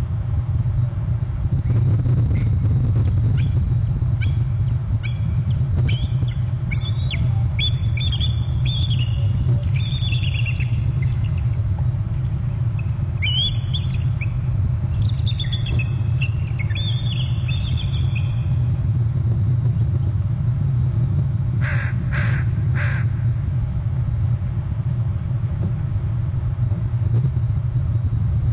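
Bald eagle calling: a series of high, chirping notes that fall in pitch, repeated over the first eighteen seconds or so, then three short sounds about twenty-two seconds in. A steady low rumble runs underneath.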